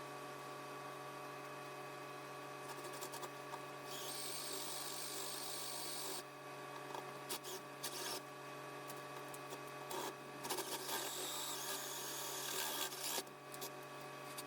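Drilled-out bumper shock absorber venting its pressure in stretches of hissing, with small clicks, over a steady low electrical hum.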